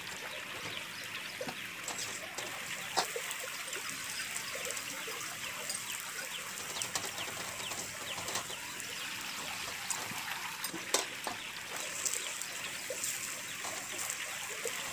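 Cauliflower paratha shallow-frying in oil on an iron tawa over a medium flame: a steady sizzle with frequent small crackles, and a metal spatula pressing and scraping on it.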